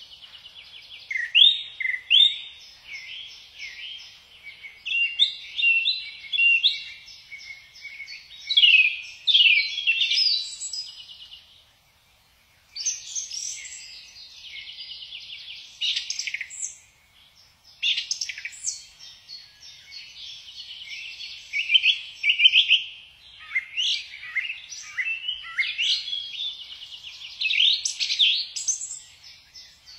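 Small wild songbirds chirping and singing in quick high-pitched phrases of short downward-sweeping notes and rapid trills, with a brief pause about twelve seconds in.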